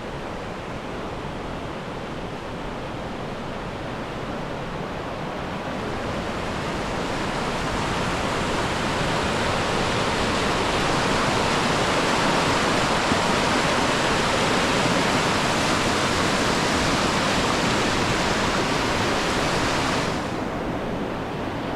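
Steady rush of falling water, with no distinct splashes or tones, growing slowly louder over the first ten seconds or so and losing its hiss near the end.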